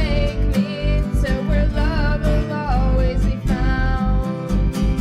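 Music track with a steady beat, plucked guitar and a singing voice.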